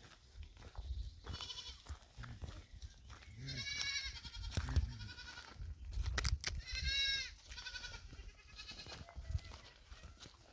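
Goats bleating several times in high, wavering calls, the loudest about four and seven seconds in, over a few sharp knocks and a low rumble.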